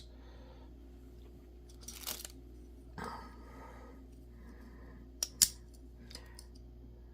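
Small clamps being handled and set on glued lock pick handles at a work table: a short rustle, a scrape, then two sharp clicks in quick succession a little over five seconds in, over a faint steady hum.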